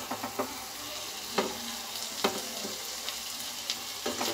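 A black slotted spatula scraping and tapping in a non-stick pan of cooked zarda sweet rice, with a steady sizzle from the pan and several short knocks scattered through. It is the rice being scooped up for serving.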